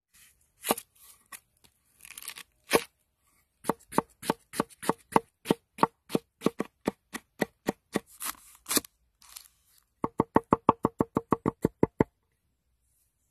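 A chef's knife chopping on a wooden cutting board: a few scattered cuts, then a red onion sliced with even strokes about three a second. About ten seconds in it switches to garlic, chopped faster at about six strokes a second, and stops about a second before the end.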